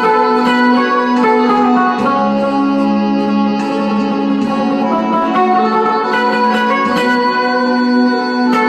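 Guitar playing a slow melody in F minor, single notes changing every second or so over steady sustained low notes underneath.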